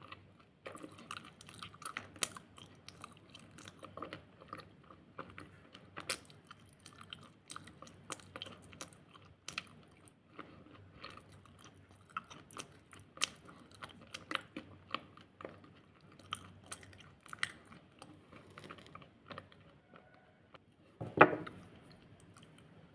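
Something crunchy being bitten and chewed close to the microphone: an irregular stream of sharp, crackling crunches, with one louder, longer crunch near the end.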